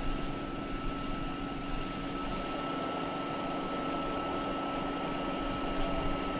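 Steady idling engine hum with a constant higher whine over outdoor background noise.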